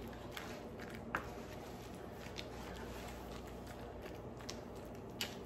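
Faint kitchen utensil handling: a few light clicks and taps of a utensil on a bowl or pan while thick dip is scraped out, the sharpest about a second in and again near the end, over a steady low hum.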